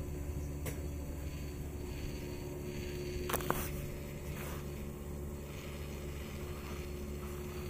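A steady low mechanical hum, with a sharp double click about three and a half seconds in.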